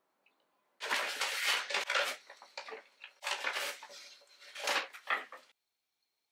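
Close handling noises in several short bursts of rustling and clatter, cutting off abruptly about five and a half seconds in.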